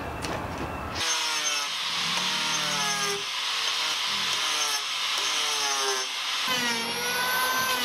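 Angle grinder shaping the edge of a curved timber boat frame (a fashion piece), starting about a second in. Its whine dips and rises in pitch as the disc bites into the wood.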